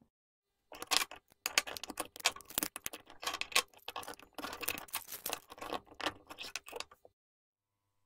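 Plastic and metal parts of a GFCI outlet clicking, snapping and rattling as its black plastic housing is pulled apart by hand. It is a quick irregular run of small clicks that starts about a second in and stops shortly before the end.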